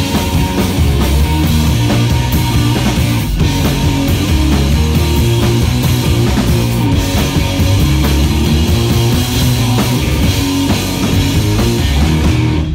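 Live punk rock band playing loud and full: electric guitar, bass guitar and drum kit together. The music stops suddenly right at the end.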